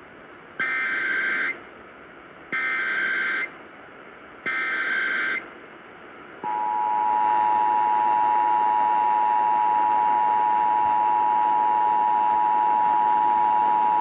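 Emergency Alert System tones: three bursts of the SAME digital header, each about a second long and evenly spaced, then the steady two-tone attention signal (853 and 960 Hz) comes in about six and a half seconds in and holds. These are the header and attention signal that open an EAS alert, here for a required monthly test.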